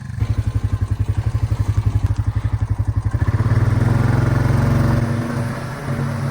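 Honda four-wheeler engine pulling a bale unroller, chugging in fast even pulses at first, then running louder and steadier from about three seconds in before easing off near five seconds.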